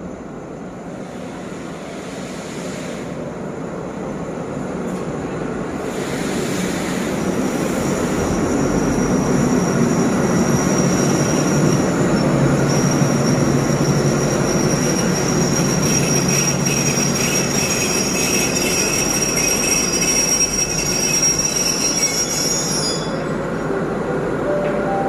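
Passenger train hauled by a State Railway of Thailand Alsthom diesel-electric locomotive pulling into the platform and braking to a stop. The engine and rolling wheels grow steadily louder, with a high brake squeal from about six seconds in that cuts off a couple of seconds before the end.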